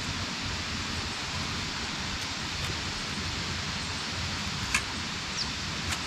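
Steady rush of flowing river water, with one sharp knock about three-quarters of the way through as half-burnt sticks are shifted over the campfire's ash bed.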